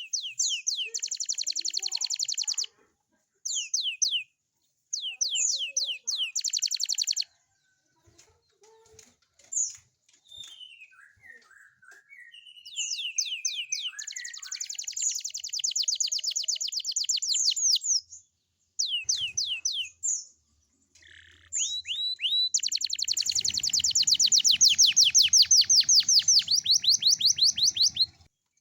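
Young domestic canary singing: bursts of fast trills and downward-sweeping whistles separated by short breaks, ending in a long, loud rolling trill near the end.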